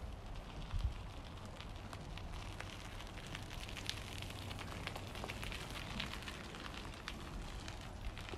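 Outdoor ambience: a low rumble of wind on the microphone, with many faint crackling ticks scattered throughout that are densest around the middle.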